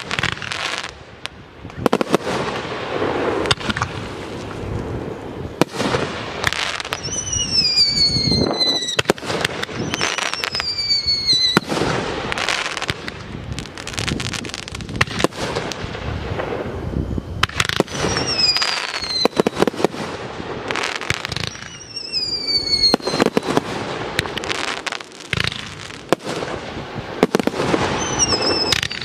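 Aerial fireworks display: a steady run of sharp bangs from bursting shells, with about five whistling effects that each glide down in pitch.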